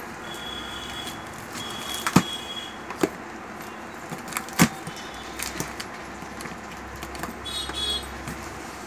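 Packing tape being slit with a screwdriver and pulled off a cardboard carton: short high squeals as the tape pulls away, with a few sharp taps and scrapes of the tool on the cardboard.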